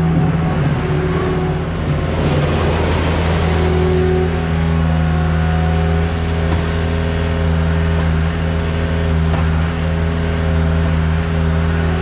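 John Deere skid steer's diesel engine running steadily as its bucket scoops into a pile of ear corn.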